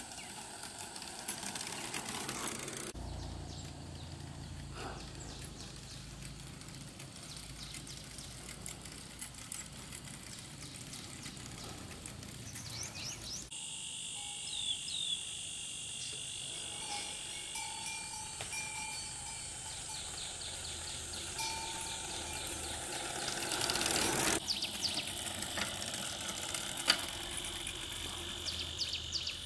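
Outdoor ambience pieced together from several takes that change abruptly, with short high chirps and a steady high buzz in the middle stretch and a quick rhythmic ticking near the end.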